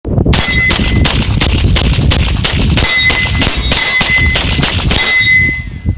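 Beretta M9A3 9mm pistol fired rapidly, a long string of shots about three a second, stopping near the end. Wind buffets the microphone throughout.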